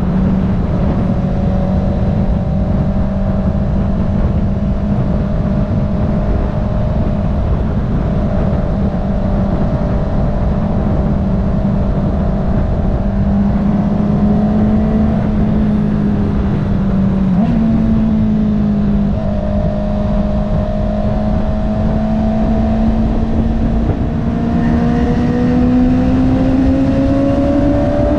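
Honda CB650R's inline-four engine, breathing through an Akrapovič titanium full-system exhaust with its dB killer removed, running at steady highway speed, with wind rushing over the microphone. The engine note holds nearly steady, shifts slightly partway through, and climbs in pitch over the last few seconds as the bike accelerates.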